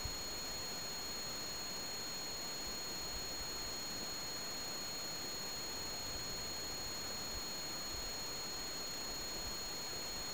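Steady, faint hiss with a constant thin high-pitched whine, the recording noise of a camera's own microphone and electronics, with nothing else happening.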